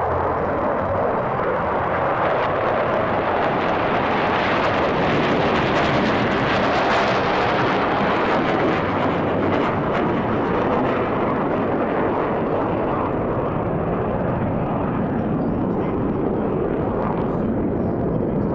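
Jet engine noise from the Blue Angels' F/A-18s flying overhead in formation: a steady roar that swells to its loudest and sharpest about five to seven seconds in, then eases off slightly.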